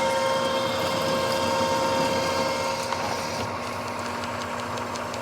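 Precision Matthews manual lathe running under load, its tool taking a facing cut across a pipe flange held in a 3-jaw chuck, over a steady motor hum. The cutting noise eases about three and a half seconds in as the pass nears its end, where the chip tends to bind and rub.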